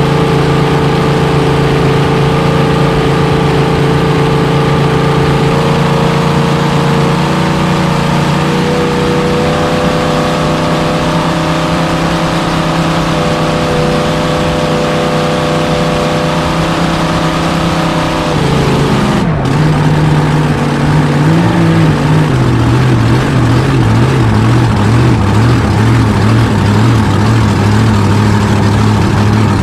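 Supercharged, fuel-injected 427 Chevy big-block V8 in a V-drive race boat running hard at steady high revs, heard close from on board. A little after two-thirds through, the revs drop and the engine settles into a lower, uneven lope as the boat slows.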